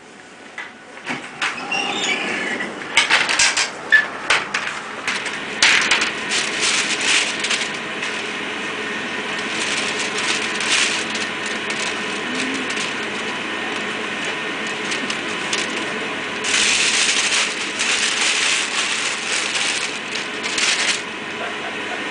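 Supermarket background noise under steady hiss. In the first few seconds there is a run of clicks and knocks, and near the end comes a stretch of louder paper rustling as a brown paper bag is handled at the bread shelves.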